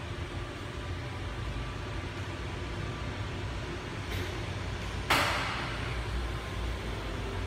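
Steady low rumble of a cruise ship's machinery and air handling. About five seconds in, a sudden loud hiss fades away over about a second.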